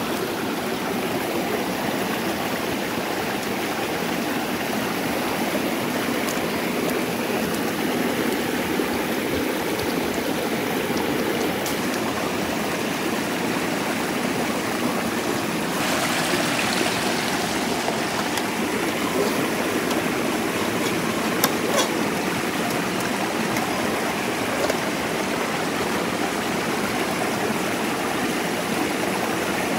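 Shallow rocky stream flowing steadily, with a few faint clicks.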